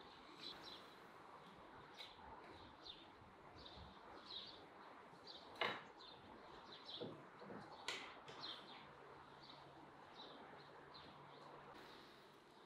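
Small birds chirping over and over against quiet room tone. Two sharp clicks come a little past halfway and about two seconds later.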